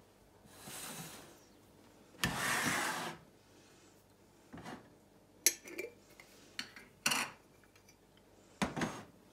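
A glass bowl sliding and scraping on a stainless-steel counter for about a second, then a few light clinks and knocks of dishes being handled.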